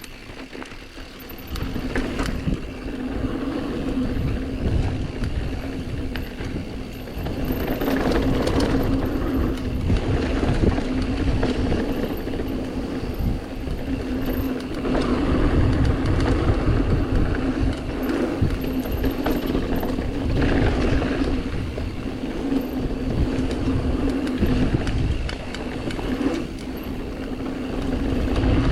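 Mountain bike descending a bike-park dirt trail: wind rumbling on the camera microphone, tyres and frame clattering over the terrain, and a steady hum underneath.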